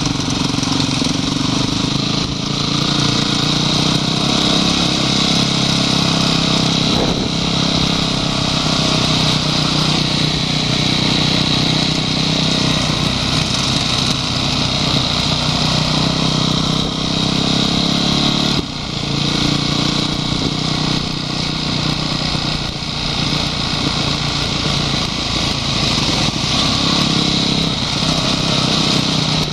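Honda CRF250X's single-cylinder four-stroke engine running steadily while riding, picked up by a camera mounted on the bike. The engine note drops briefly about two-thirds of the way through, then picks back up.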